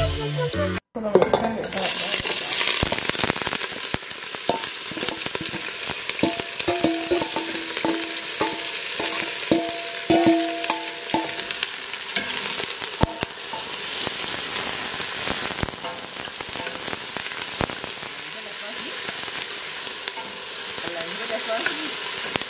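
Chopped fresh vegetables (onion, celery, peppers) sizzling and frying in hot burnt-sugar browning in a stainless steel stockpot. A metal spoon stirs them, clicking and scraping against the pot.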